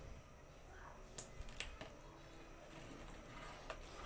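Metal ladle stirring thick cornstarch-thickened sauce in a steel wok, faint, with a few sharp clicks of the ladle against the pan.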